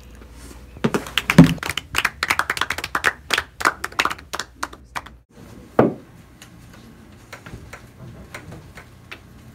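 Hurried footsteps and sharp tapping clicks on a hard floor, several a second and uneven, loudest about a second and a half in; a single heavier knock comes just after the middle, then only a few faint taps.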